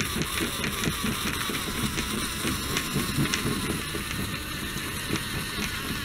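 Homemade remote-control tracked car with bicycle-chain tracks driving on a hard floor: its DC motors run and the chain tracks clatter in a steady, dense rattle.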